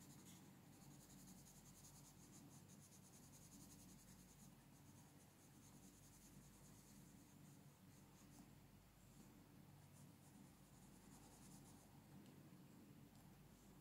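Faint scratching of a colored pencil shading on a coloring-book page in quick, repeated strokes.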